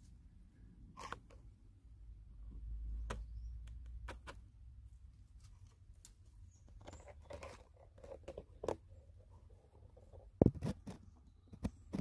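Handling noise from a handheld camera being moved about in a small stone room: scattered clicks, rustles and light knocks, a low rumble from about two to five seconds in, and one sharp knock about ten and a half seconds in.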